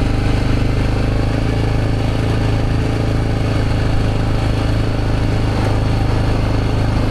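A motor vehicle's engine running steadily, a low, even drone with no change in speed.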